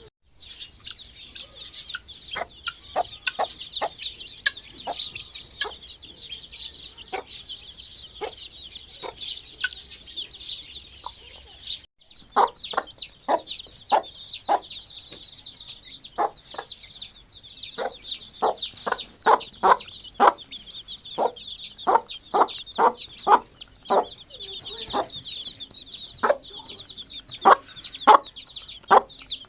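A brood of desi chicks peeping constantly in a high-pitched chorus. Through it a hen clucks in short, repeated calls, which come more often in the second half.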